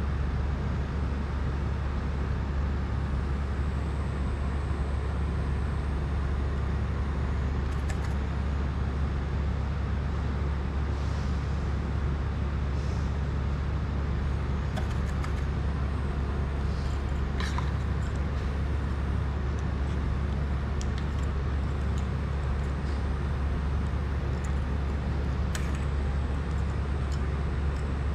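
A steady low hum with an even hiss behind it, unchanging throughout, with a few faint clicks and taps from small drone parts and tools being handled.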